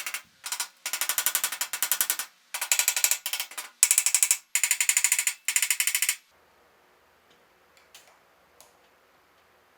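Ratchet wrench clicking in quick runs of rapid, even clicks as its handle is worked back and forth; it stops about six seconds in, leaving only a few faint clicks.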